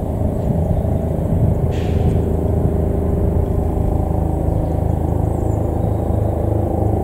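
Eurocopter EC225 Super Puma helicopter on its landing approach: the main rotor and twin turboshaft engines make a steady, low rumble with many hum tones.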